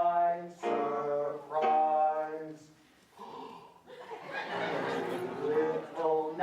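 A man's voice singing two long held notes on stage, then a few seconds of chuckling and laughter.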